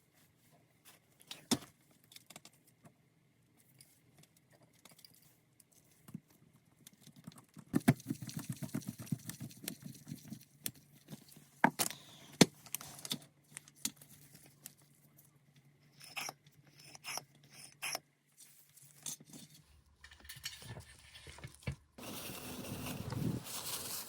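Scattered clicks, taps and light metallic clinks of small parts and hand tools being handled during carburetor work. A steady hiss starts near the end.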